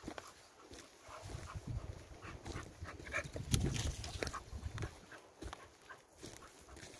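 A small dog panting and snuffling close by over footsteps crunching on a dry path of twigs and leaf litter. A low rumble on the microphone swells in the middle.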